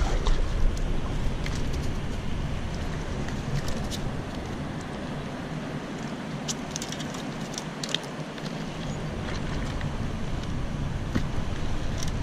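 Steady rushing outdoor noise of wind on the microphone over tailwater below a dam; the low rumble of the wind eases for a few seconds midway. A few light clicks and taps come about six to eight seconds in and again near the end, as a caught skipjack herring is unhooked from a crappie-jig rig.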